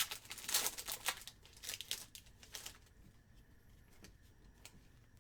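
Plastic trading card pack wrapper crinkling and being torn open, a dense flurry of crackles for about two and a half seconds, then quieter handling with a few light ticks.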